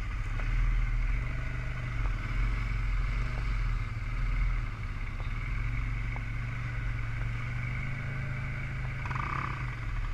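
Quad (ATV) engine running steadily as it is ridden, heard from on board the machine.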